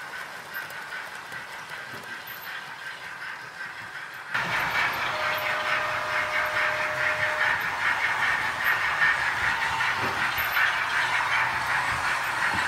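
OO gauge model trains running on the layout's track: a steady whir of motors and wheels on rail. It becomes clearly louder about four seconds in.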